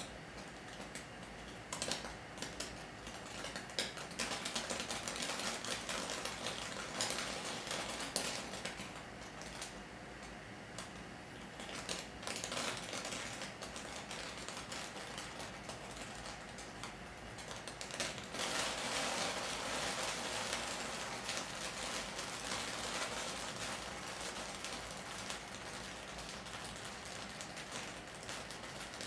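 Sparks crackling: a fast, irregular patter of small clicks and crackles that swells louder about two-thirds of the way through, then eases.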